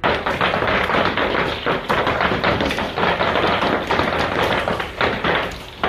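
Hailstones pelting a hard surface: a dense, fast patter of taps and knocks that starts abruptly.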